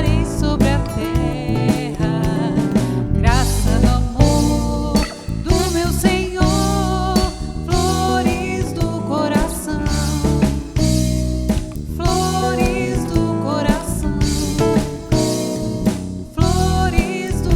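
A band playing a Catholic devotional song: a singing voice over guitar, bass and a drum kit with a steady beat.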